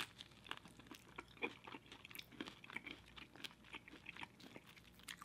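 Close-miked crunching and chewing of KFC Extra Crispy fried chicken: a crisp bite at the start, then irregular small crunches as the crust is chewed.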